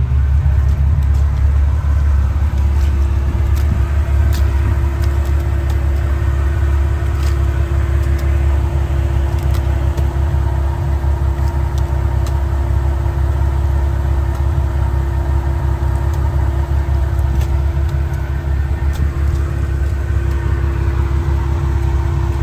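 Off-road Jeep 4x4's engine running steadily with a heavy low drone. A steady hum comes in a few seconds in, and light ticks are scattered throughout.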